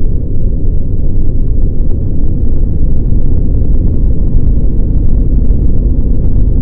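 Extremely loud, distorted, bass-heavy rumble that runs on steadily with almost nothing above a low-mid pitch: a bass-boosted, clipped meme sound effect of an explosion-like blast.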